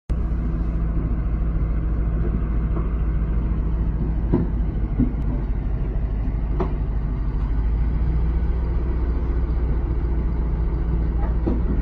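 Large Caterpillar crawler bulldozer's diesel engine running steadily under load as the machine climbs onto a lowboy trailer deck, with a few sharp metal clanks from the steel tracks.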